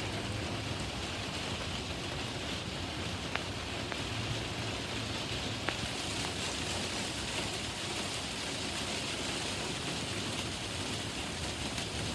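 Steady rain pouring down during a thunderstorm, with two sharp ticks about a third and halfway through.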